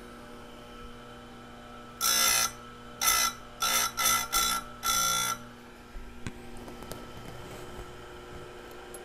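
Tecomec electric chain grinder's motor running steadily. From about two seconds in, its CBN wheel is brought down onto a saw-chain cutter six times in quick succession, each pass a short, loud grinding buzz, dressing back a tooth damaged by hitting metal. A few light clicks follow.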